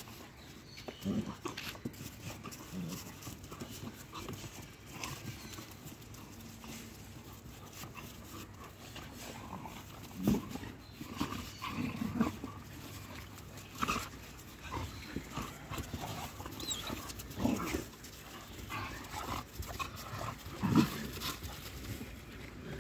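A pack of street dogs fighting, with short growls and yelps in scattered bursts, the loudest near the middle and a couple of seconds before the end.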